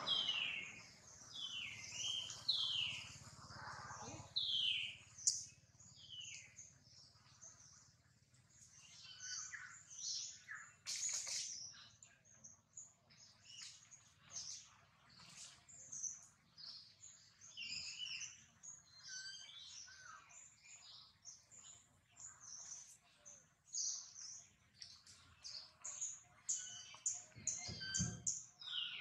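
Birds chirping and calling outdoors: a run of repeated downward-sliding calls in the first few seconds, then many short, high chirps that keep going. A brief low rumble comes near the end.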